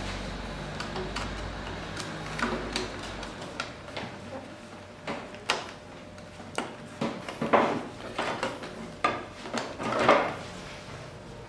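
Irregular knocks and clatters of hard objects being handled and set down, loudest about halfway through and near the end. A low hum underneath stops about three seconds in.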